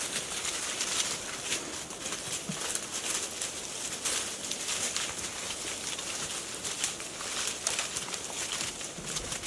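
Outdoor ambience: a steady hiss with many small ticks and rustles, and one short low call about two and a half seconds in.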